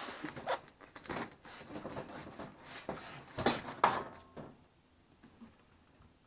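Cardboard shipping box and packing being handled and opened: irregular scraping and rustling with two sharper knocks about three and a half to four seconds in, then it goes quiet.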